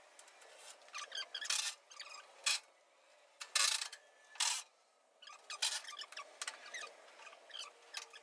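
A hand wrench or ratchet working the inner fender bolts of a 1961 GMC truck: a series of short scraping, rasping strokes about a second apart, with quiet gaps between.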